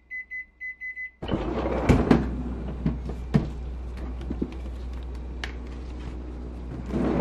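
Microwave timer beeping, a quick run of short high beeps that stops about a second in, signalling the countdown is done. Then a freezer drawer is pulled open and a silicone mold is lifted out, with knocks and rustling against plastic-wrapped frozen food.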